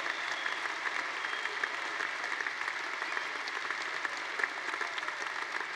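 Audience and people on stage applauding together, many hands clapping steadily.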